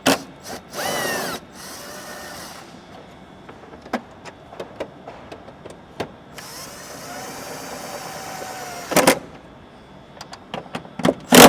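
Cordless drill/driver driving in the original scoop screws: a short burst of the motor with a falling whine about a second in, then a longer steady run of about two and a half seconds from around six and a half seconds in. Light clicks of handling in between, and two sharp knocks, the louder one near the end.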